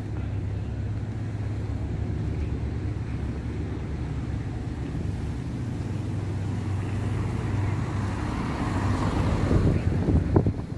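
Street traffic: a steady low engine hum, with a vehicle growing louder and passing near the end.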